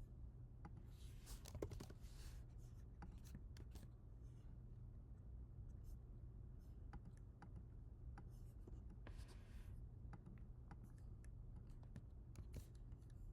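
Computer keyboard keys clicking sparsely and unevenly, with a couple of brief scratching sounds, over a low steady hum.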